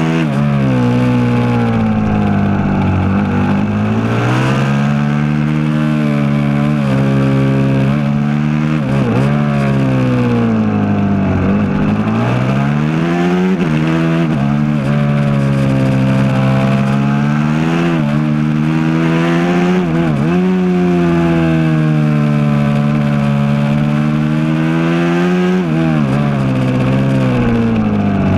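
Aprilia SXV 450 V-twin supermoto engine heard onboard at speed on a track, its pitch repeatedly climbing through the revs and dropping away with gear changes and braking into corners, with several sharp dips and quick rises.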